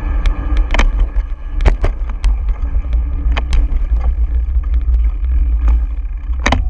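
Wind buffeting the microphone of a handlebar-mounted camera while riding, a steady low rumble, broken by several sharp knocks and rattles as the ride goes over bumps and onto a brick walkway.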